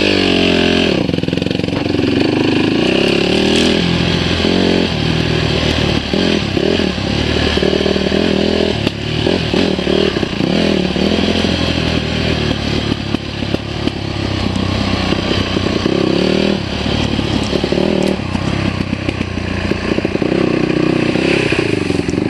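Dirt bike engine running under load, heard from on the bike, revving up and easing off again and again, with knocks and rattles from the bike over rough ground.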